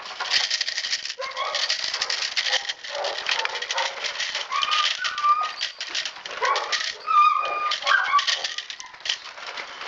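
A chatter stick, a protection-training noise tool, shaken hard near puppies as noise conditioning, giving a fast, irregular dry clatter. A few short high squeals sound among it.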